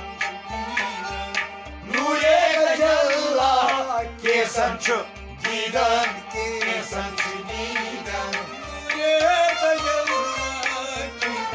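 Kashmiri Sufi song: a hand drum keeps an even beat of about two and a half strokes a second under steady held instrumental tones, with voices singing over it in long phrases from about two seconds in.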